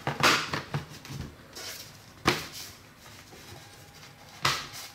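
Plastic snap-fit clips of a Dell Inspiron 5000 series laptop casing popping loose as a guitar pick is worked along the seam: three sharp snaps about two seconds apart, with faint scraping of the pick between them.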